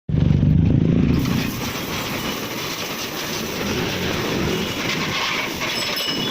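Pressure washer running steadily, with a louder low hum in the first second or so before it settles into an even noise.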